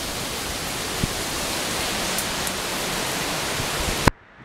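Hurricane-force wind rushing steadily, the strongest winds on the back side of the hurricane's eye. The sound cuts off abruptly near the end.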